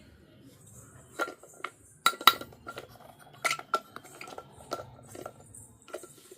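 Small hard pieces of a miniature toy kitchen set clinking and tapping together as they are handled: about a dozen separate light clinks, several with a brief ring, the loudest pair a little after two seconds in.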